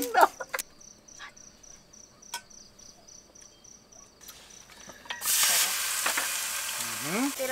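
Meat sizzling loudly on a hot griddle pan, starting suddenly about five seconds in as it is laid on. Before that, insects chirp faintly in a fast, even pulse.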